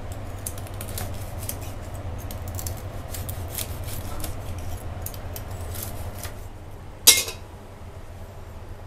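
Kitchen knife slicing through crispy pork belly on a wooden cutting board: a run of irregular crackling crunches as the blade breaks the crisp skin and knocks on the board. About seven seconds in comes a single sharp clatter, the loudest sound.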